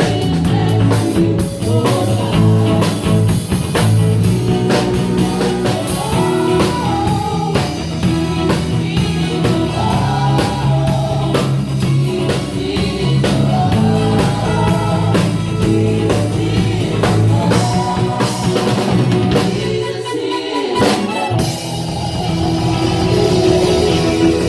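A band playing a rock-style worship song with drums, bass, guitar and singing, run through as a sound check. About twenty seconds in the bass and drums drop away for a moment, and guitar carries on.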